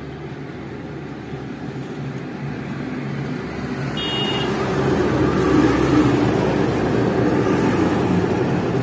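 Motor vehicle engine noise from road traffic, growing louder over the first half and then holding steady.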